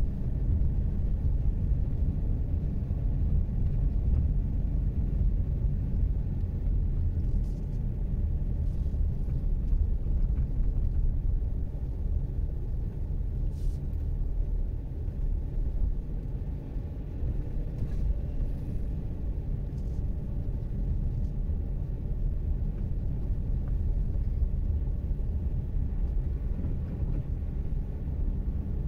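Haval Jolion driving up a grade: a steady low rumble of engine and road noise.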